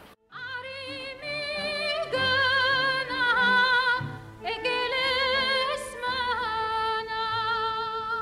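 Background music with an operatic-sounding melody of long held notes with wide vibrato over a low accompaniment, starting a moment in.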